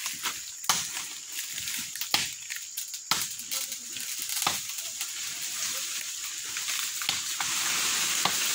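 A parang machete chopping into the trunk of a small tree: several sharp chops, unevenly spaced about one to two seconds apart.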